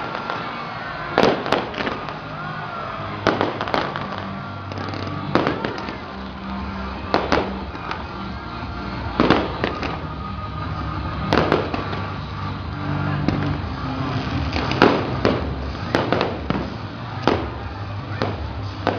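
Aerial fireworks shells bursting in a display, a sharp bang every one to two seconds, with music playing underneath.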